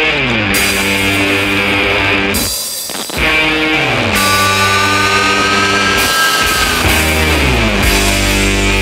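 Background rock music with guitar, phrases sliding down in pitch every couple of seconds.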